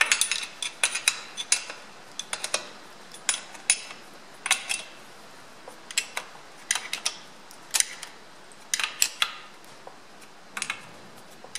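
Open-ended spanner clinking on the steel flange nuts of a Ferguson FE35 rear axle housing as they are done up by hand. The metallic clicks are irregular: a quick run at the start, then spaced out, some in pairs.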